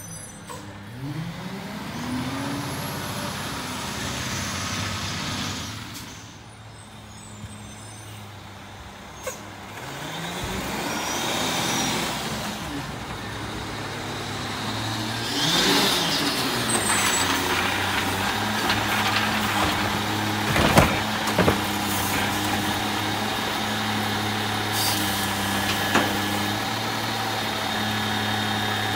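Diesel garbage truck engines pulling away and pulling up, their pitch rising and falling. An air brake hisses about halfway through as a truck stops, then the engine idles steadily while the automated side-loader arm lifts a cart, with a few knocks.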